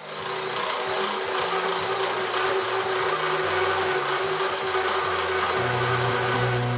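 A power tool running steadily at speed, a dense whirring hiss with one steady hum, while music plays low underneath.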